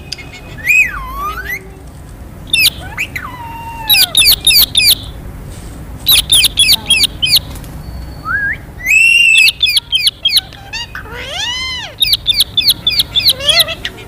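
Rose-ringed parakeets screeching: rapid runs of harsh, high squawks several a second, broken by a long loud squawk about nine seconds in and a few swooping whistled notes.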